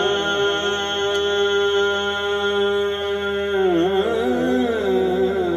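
Male naat singer holding one long, steady note for about three and a half seconds, then moving into a wavering melodic run.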